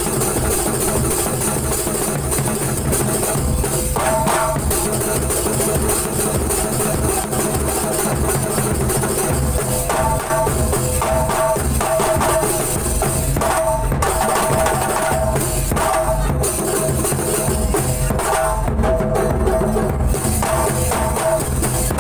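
Kuntulan percussion ensemble playing: many hand-held frame drums (rebana) struck together in a fast, dense rhythm over a large bass drum. Short pitched melodic phrases come and go above the drumming.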